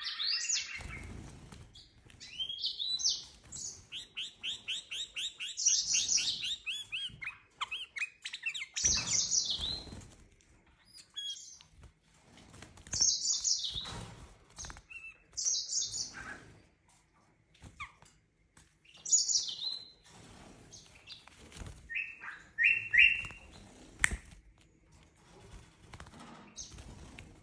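Himalayan bulbul calling in bursts of bright chirps, with a fast run of repeated notes early on and short phrases every few seconds after. A few low thumps come in among the calls.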